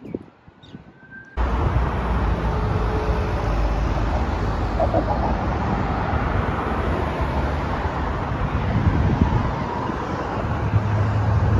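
Traffic passing on a multi-lane road, with wind noise on the microphone; it starts abruptly about a second and a half in and swells near the end as a vehicle's engine hum grows louder.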